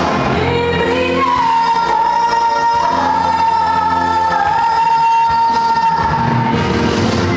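A girl singing solo into a microphone over instrumental accompaniment, holding one long high note from about a second in until near the end.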